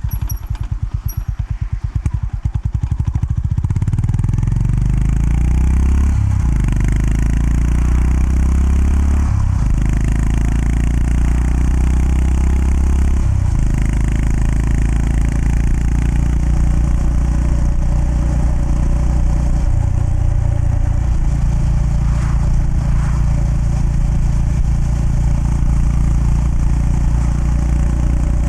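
Honda GB350S's air-cooled single-cylinder engine thumping at low revs, then pulling away and accelerating through the gears, with three gear changes, before settling into a steady cruise.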